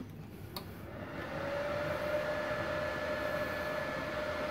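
A switch click about half a second in, then a MultiPro MIG-MMA/TIG 160 AS-MZ inverter welder powers up and runs with a steady hum and a high whine that come in over about a second.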